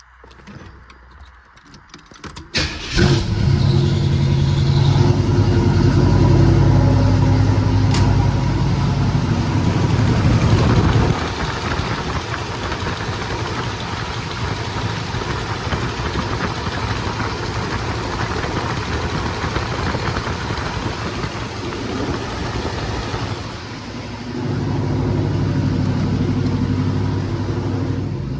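Cammed small-block Chevy V8 with new stainless headers cranking and starting about three seconds in, running loud for several seconds, then settling to a quieter steady idle before getting louder again near the end. It is being run to check the freshly resealed headers for an exhaust leak.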